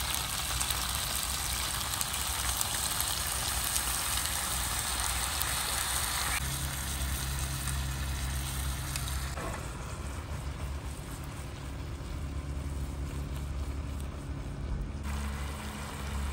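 Soy-sauce marinade sizzling and bubbling in a hot grill pan of frying fish pieces as it is poured in.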